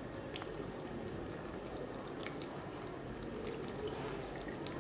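Water trickling and dripping from a cotton-wool cloud onto a model's base, fed by a small battery-powered water pump and aquarium hose: a steady soft splashing with scattered drips.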